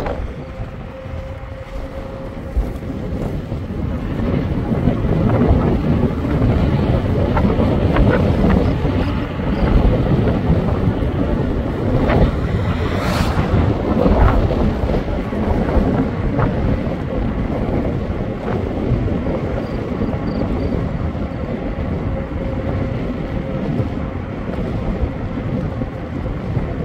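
Heavy wind buffeting the microphone while moving along a road, a dense low rumble throughout with a faint steady hum at times. A brief sharp noise comes about thirteen seconds in.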